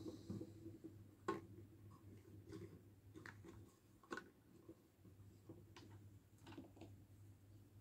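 Faint, scattered clicks and taps of small plastic toy pieces being handled as a heart-shaped pillow is set on a pink plastic toy bunk bed. The two sharpest clicks come about a second in and about four seconds in, over a steady low hum.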